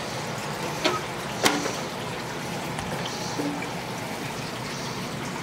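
Aquarium filter water trickling steadily, with two short sharp knocks about one and one and a half seconds in.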